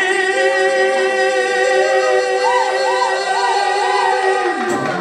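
A singing duet holds one long note in two-part harmony, with four quick ornamental turns in the upper line partway through. The held note ends shortly before the end.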